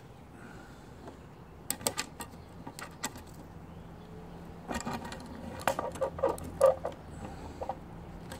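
Small steel valve-train parts on a Slant Six cylinder head clinking and tapping as they are handled: a few sharp clicks about two seconds in, then a busier run of clinks from about five to seven seconds in.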